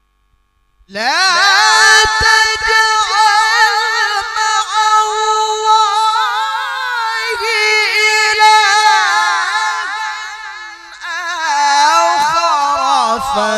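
A male qari chanting the Quran in the melodic tilawah style, his voice amplified through a microphone. He enters about a second in with an upward swoop into a long, high, held phrase with rapid ornamental wavering, falls in pitch and loudness briefly near the end, then rises again.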